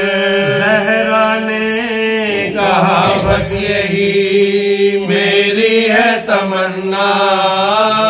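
A group of men's voices chanting a marsiya (Shia elegy) in long drawn-out notes, one low note held steadily beneath the melody throughout.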